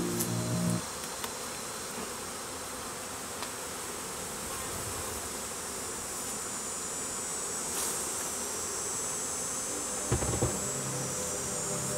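Steady buzzing of many honeybees flying around an opened hive as its comb frames are lifted out, with a few light knocks near the end.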